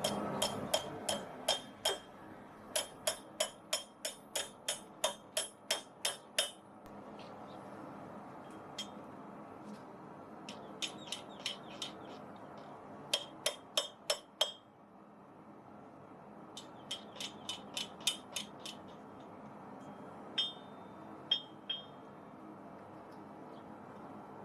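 Blacksmith's hammer striking hot steel on an anvil, each blow with a bright metallic ring: a fast run of about three blows a second, then shorter groups with pauses between. This is the tapered end of a steel bar being rolled into a scroll.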